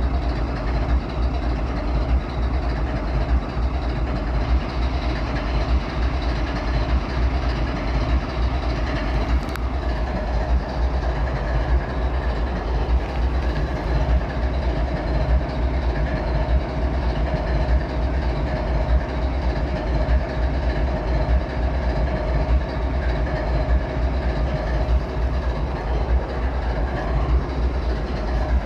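GE ES44AC diesel-electric locomotive with its V12 GEVO diesel engine idling steadily: a low, pulsing rumble with a steady whine above it.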